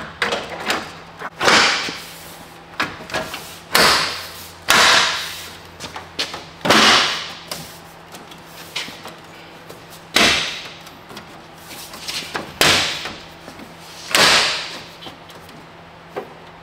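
Chrome grille of a GMC Sierra HD pickup being pressed and knocked back into place on the front end. There are about seven loud sudden snaps and thuds, a second or two apart, with smaller knocks between them.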